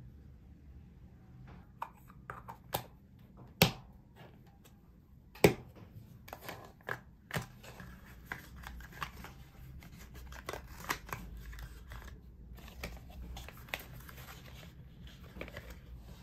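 Close handling sounds of 35 mm film canisters, a marker and cardboard film boxes being picked up and put down on a desk: a few sharp clicks and taps, two louder ones a few seconds in, then a run of lighter clicks and paper rustling.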